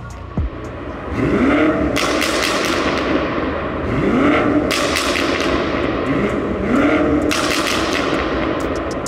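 BMW F90 M5's twin-turbo V8 with a full M Performance exhaust, revved three times while standing still. Each rev rises and falls in pitch, and crackles and pops follow as the revs drop.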